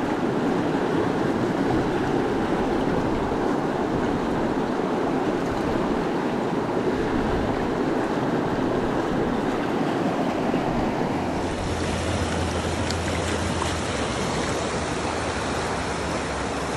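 Fast-flowing river rapids rushing steadily over rocks. A little past the middle the sound changes abruptly and a low steady hum joins the water.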